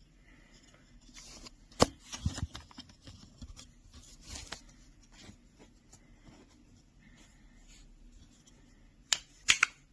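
Handling noise: scattered sharp clicks and short rustles of something small being handled by hand, with a cluster of louder clicks about two seconds in and two more near the end.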